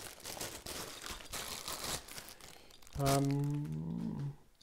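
Packaging crinkling and rustling for about two seconds as a telescope accessory is unwrapped by hand. About three seconds in, a man gives a short, sustained hum lasting just over a second.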